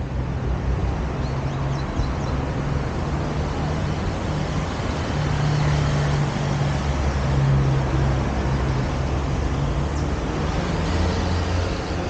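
City street traffic: motor vehicle engines running and passing close by over steady road noise, a low drone that swells a little past the middle.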